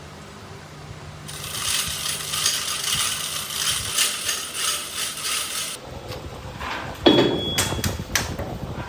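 Metal lathe running with a low hum, then about a second in a harsh scraping hiss of the cutting tool working the metal for several seconds. After it stops, metallic clinks and knocks follow, the loudest a sharp clang with a brief ring about seven seconds in.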